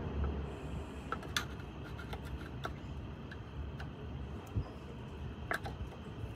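A few light, scattered metallic clicks and taps of hand tools working on the breaker points of a Volkswagen air-cooled engine's distributor, over a low steady background rumble.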